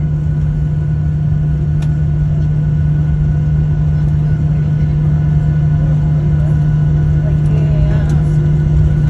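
Airliner cabin noise while taxiing after landing: a steady low rumble with a strong, even hum.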